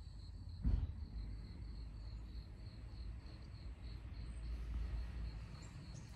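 An insect chirping in a steady, high-pitched pulse, about three pulses a second, over a low rumble, with a single thump just under a second in.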